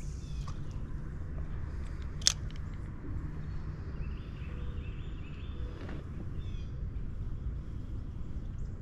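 Outdoor creek ambience: a steady low rumble, with a bird chirping a run of quick high notes near the middle. A single sharp click about two seconds in.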